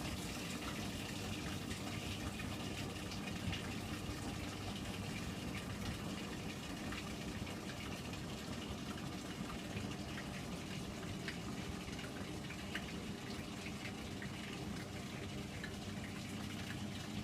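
Hotpoint washing machine on its drain stage: the drain pump runs with a steady low hum as water is pumped out of the drum.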